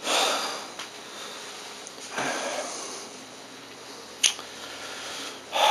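A man breathing close to the microphone: a few soft, noisy breaths with pauses between them, and a single sharp click about four seconds in.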